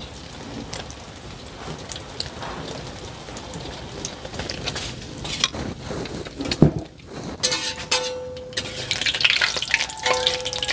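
Egg omelette batter frying in hot oil in a steel wok: a steady sizzle, with a metal spatula scraping and knocking against the wok.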